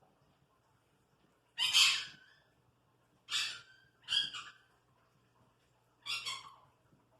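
A parrot giving four harsh squawks, each about half a second long and spread over a few seconds, the first the loudest.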